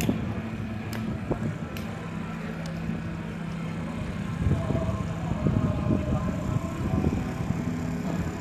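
Small vehicle running and moving along a paved street with a steady low engine hum, turning rougher and more uneven for a few seconds about halfway through.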